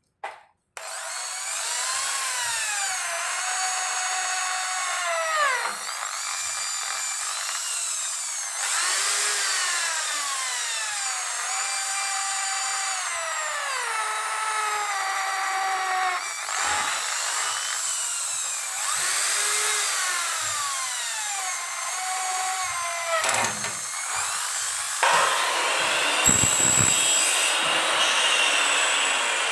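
Power drill driving screws into an aluminium door profile, its motor speeding up, holding and slowing down in about ten separate runs. Near the end it gives way to a rougher, noisier whirring.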